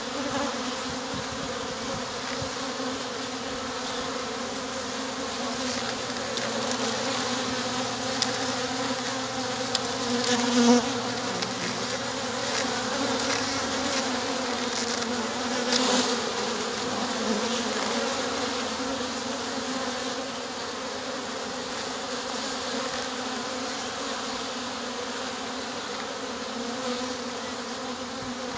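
A mass of honeybees buzzing steadily as a package of bees is installed into a top bar hive, with a few short knocks about ten and sixteen seconds in.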